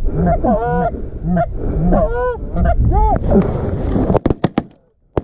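Canada geese honking rapidly, then a quick volley of shotgun blasts just after four seconds in, several shots in about half a second.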